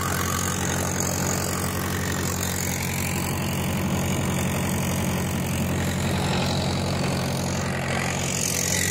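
Tractor diesel engine running steadily under load in low first gear. It drives a PTO implement at 540 economy speed, lowered to full working depth.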